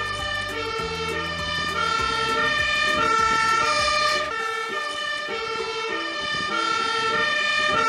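Fire engine's two-tone siren sounding as the Magirus aerial ladder truck pulls away, switching steadily back and forth between a high and a low note. The truck's engine rumbles underneath for about the first half, then fades.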